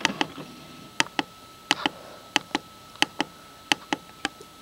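Plastic arrow button on a printer's control panel pressed repeatedly to scroll a menu, each press a sharp double click as it goes down and springs back, about seven presses in a steady rhythm.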